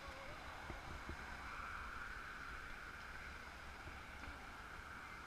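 Faint city street ambience: a low steady traffic rumble with a steady hiss.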